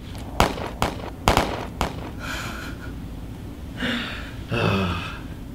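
Four gunshots about half a second apart, then a short voice-like sound near the end.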